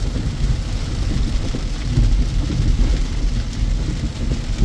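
Heavy rain falling on a van's roof and windshield, heard from inside the cabin, over the steady low rumble of the van driving on a wet road.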